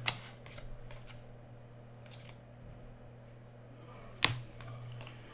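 2017 Panini Playoff football trading cards being flipped by hand from one stack to another. There is a sharp card snap just after the start and a louder one about four seconds in, with a few faint ticks between, over a steady low hum.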